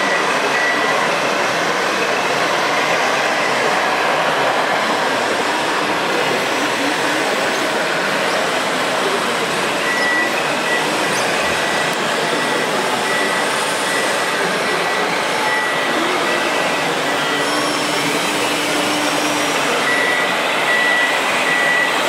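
Steady mechanical running noise of radio-controlled model construction machines at work, a tracked loader among them. A reversing alarm beeps in short, even pulses, in one stretch about halfway through and again near the end.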